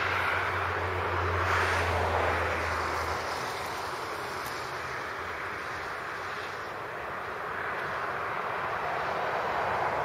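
Distant rumble of a freight train's diesel locomotives, a low steady drone that fades out about three seconds in, under a rushing noise that swells and eases.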